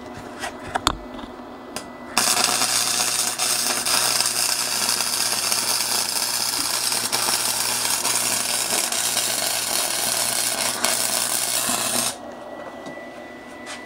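Arc welding: the welding arc runs steadily for about ten seconds, a loud hissing crackle with a low hum underneath. It starts about two seconds in and cuts off near the end. A couple of light clicks come before it.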